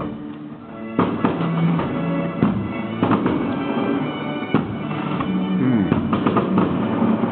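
Music with held tones and a beat of sharp drum hits starting about a second in.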